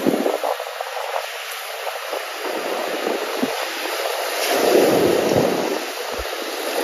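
Sea waves breaking and washing over a rocky shore: a steady rush of surf that swells a little over halfway through.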